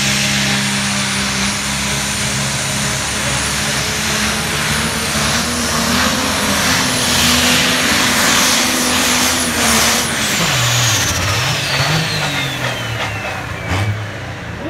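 A pulling tractor's engine runs flat out under load, with a high whistle held over it. About ten seconds in the engine backs off and the whistle slides steadily down in pitch as it winds down.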